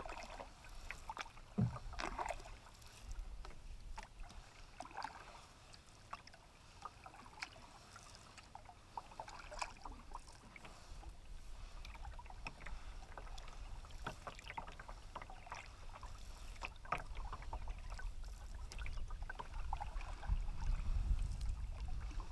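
Canoe paddling on calm water: irregular paddle splashes, drips and water trickling along the hull. A low rumble builds near the end.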